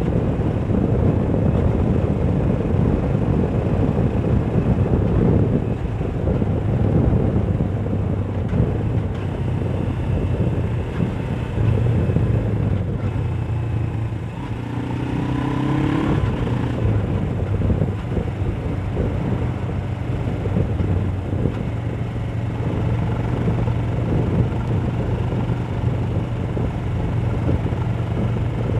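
Suzuki GS500F's parallel-twin engine running on the road, mixed with wind noise on a helmet chin-mounted camera. About halfway through the level dips briefly, and a short rising higher tone comes and goes.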